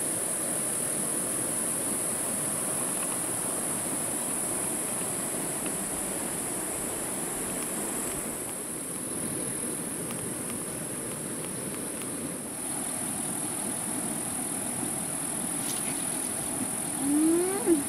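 Steady high-pitched chorus of insects over the low rush of a flowing forest stream. Near the end, a person's voice gives one short rising sound.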